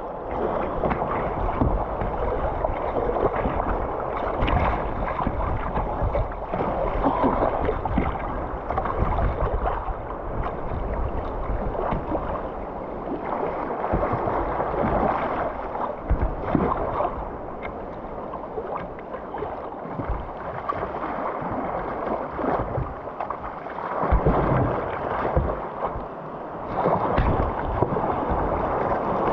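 Choppy, fast-flowing river water rushing and splashing against a kayak close to the microphone, with low rumbling wind buffeting on the microphone. The sound swells and eases but never stops.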